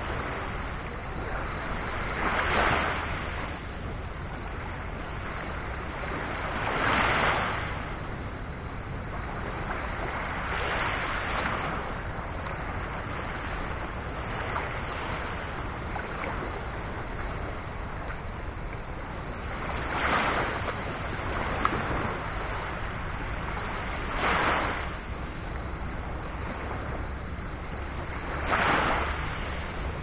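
Small, gentle sea surf washing up a shell-and-sand beach: a steady wash, with a wave breaking and running up the shore every few seconds, six times in all.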